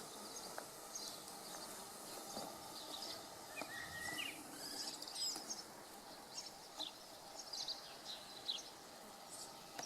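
Birds chirping and calling, short high chirps scattered throughout, with a couple of sliding calls about four seconds in, over faint steady outdoor background noise.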